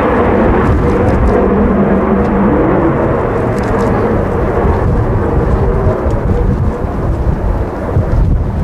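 F-16 fighter jet's engine noise as the aircraft climbs away: a loud, deep rumble that turns duller about five seconds in as the jet draws off.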